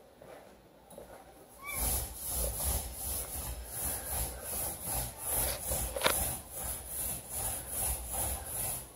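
Paint being brushed onto a wall: rhythmic back-and-forth rubbing strokes, starting about two seconds in.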